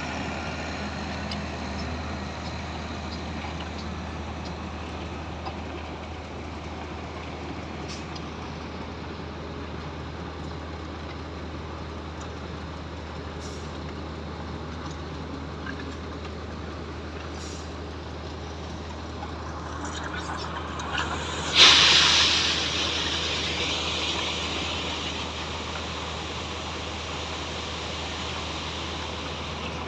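Diesel engines of the concrete pump and truck mixers running steadily. About two-thirds of the way in comes a loud, sudden hiss of released air that fades over a couple of seconds, like a truck's air brake.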